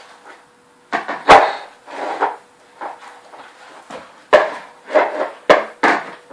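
Slime being squished and worked by hand, with irregular wet squelches and several sharp pops and clicks as air pockets burst.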